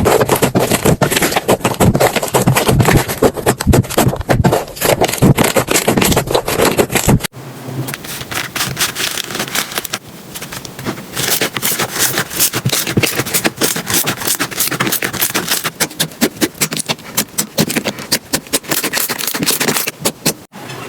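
Slime being worked by hand, making a dense, irregular run of sticky crackles and pops. About 7 seconds in it changes abruptly to a finer, lighter crackling.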